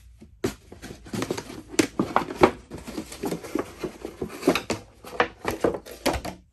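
Damned Designs Fenrir pocket knife, a D2-steel wharncliffe blade, slicing through a plastic milk or water jug: an irregular run of sharp crackling cuts and scrapes as the blade bites and drags through the plastic.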